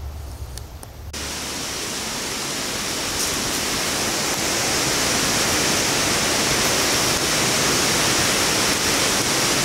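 Sudden burst of wind: a steady rushing hiss that starts abruptly about a second in and keeps growing louder.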